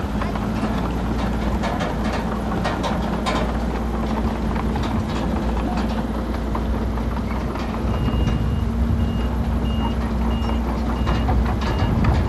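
Diesel engines of earthmoving machinery (bulldozer and dump trucks) running steadily, with scattered clanks and knocks. About two-thirds of the way in, a reversing alarm starts beeping, about two beeps a second.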